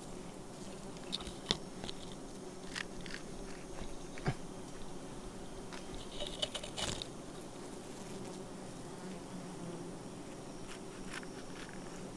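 Steady hum of a giant honeybee (Apis dorsata) colony swarming around an exposed wild comb, with scattered clicks and crunches, a cluster of them about six to seven seconds in as leaves brush close to the microphone.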